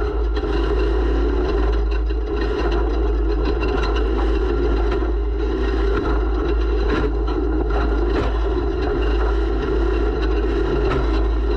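Off-road race vehicle's engine running hard and steadily at speed, heard from an onboard camera, with a few brief knocks.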